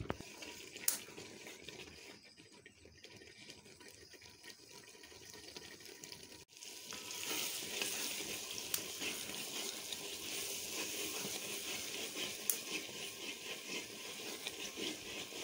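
Thick black-eyed pea (lobia) dal sizzling in a pot as it is fried (bhuna) and stirred with a wooden spoon. The sizzle is faint at first and, after a brief dropout about six and a half seconds in, turns louder and steadier, with occasional small clicks of the spoon.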